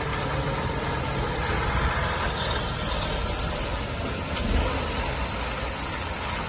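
A Mercedes-Benz truck pulling a loaded car-transporter trailer drives past, giving a steady mix of diesel engine and road noise.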